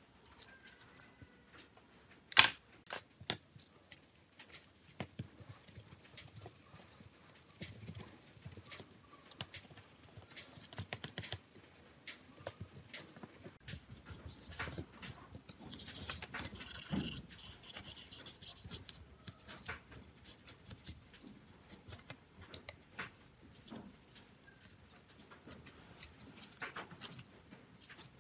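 Hand-cleaning noises on a disassembled Nokia C2-01: scattered small clicks and taps of plastic parts and a brush handled on a silicone mat, the sharpest a couple of seconds in. In the middle a cloth rubs over the phone's plastic housing, a soft rustling for a few seconds.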